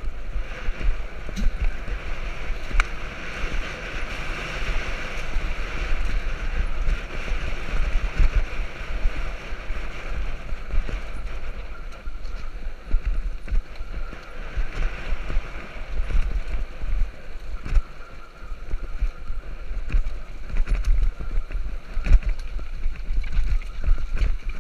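Mountain bike descending a rough dirt track: wind buffeting the camera microphone as a steady low rumble, with tyres running over loose dirt and frequent short knocks and rattles as the bike hits bumps.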